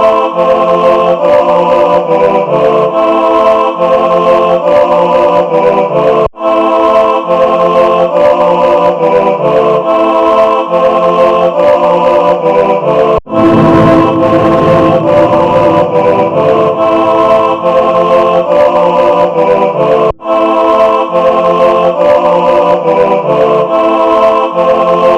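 Instrumental intro of a hip-hop track: a repeating organ-like chord progression, with brief breaks every seven seconds or so.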